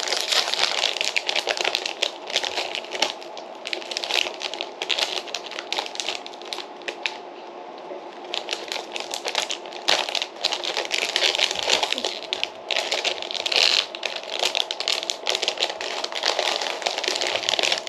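Foil potato-chip bag crinkling and crackling as it is torn open and handled, a dense, irregular run of sharp crackles.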